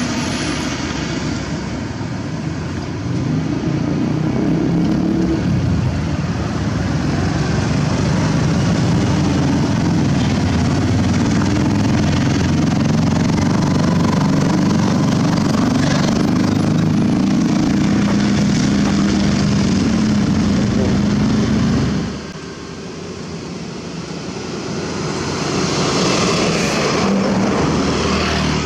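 Diesel engine of a heavily loaded self-loader truck carrying a bulldozer, running loud as it drives past close by, with a motorcycle going past alongside. The sound cuts off suddenly about 22 seconds in, then another truck engine grows louder as it approaches.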